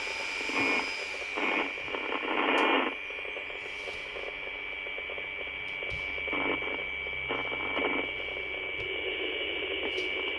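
Radio receiver in FM mode, its speaker playing an unidentified 64 MHz transmission. A steady high whistle sits over hiss, and the hiss surges briefly several times in the first three seconds and again about six and a half and seven and a half seconds in, as the signal fades in and out.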